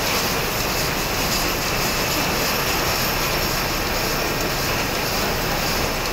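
Steady, loud din of running factory machinery on a production floor, with no distinct strikes or rhythm.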